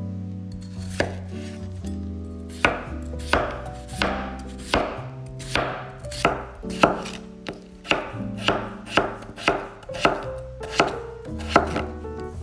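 Chef's knife slicing a peeled raw potato on a wooden cutting board: a steady run of chops, about two a second, starting about a second in.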